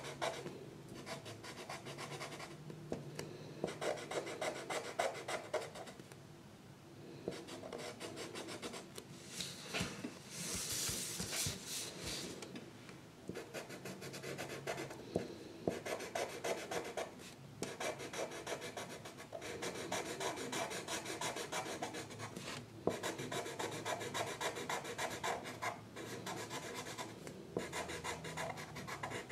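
A drawing tool rubbing on paper in fast back-and-forth colouring strokes, in runs broken by brief pauses.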